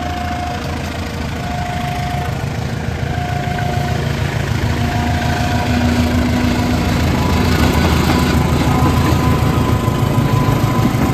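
Diesel train engine running with a deep steady rumble that grows gradually louder. A short two-note tone repeats about every second and a half over it.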